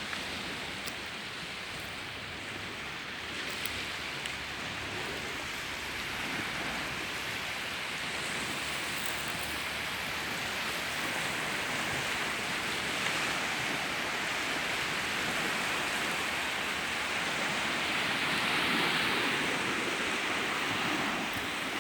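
Sea waves washing onto the shore, a steady rushing surf that grows slowly louder and peaks near the end.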